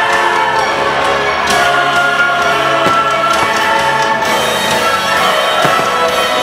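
Fireworks-show soundtrack music with a choir singing, loud and steady, with a few firework bangs under it.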